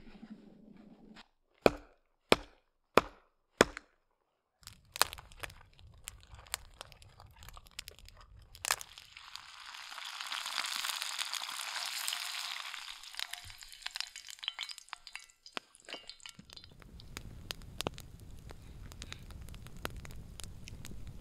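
Five sharp knocks in quick succession, then scattered crackling and a sizzling hiss that swells and fades over a few seconds, with a low steady rumble under the crackles near the end.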